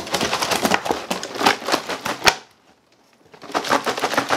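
Dry ice chunks rattling inside a large plastic water jug shaken hard by hand: a fast clatter of knocks that stops for about a second midway, then starts again.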